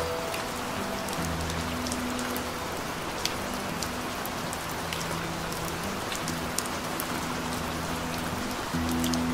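Steady rain falling on a surface, an even hiss with scattered individual drop ticks. Faint low held music notes sit underneath and grow a little fuller near the end.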